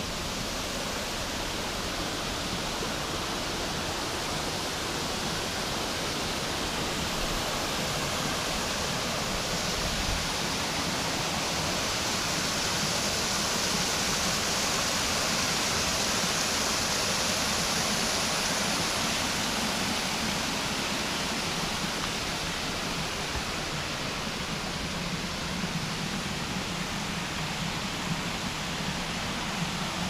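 Shallow, low-flowing forest creek running over small rock steps and cascades: a steady rush of water that swells somewhat in the middle and eases off again.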